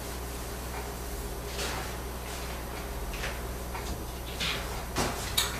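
Faint scattered scuffs, rubs and light knocks of someone moving about and handling things at a projection screen, over a steady low hum.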